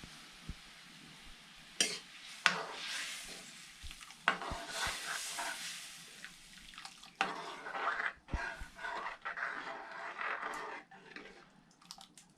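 Stirring and scraping in a cooking pot in irregular strokes, with several sharp knocks of the utensil against the pot.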